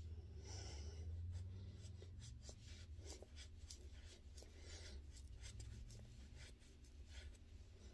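Faint soft taps and rubbing of a makeup sponge and fingers blending foundation on skin, close to the microphone, over a low steady hum.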